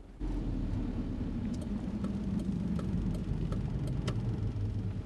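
A car engine running steadily with low road rumble, starting abruptly just after the beginning, with a few faint clicks over it.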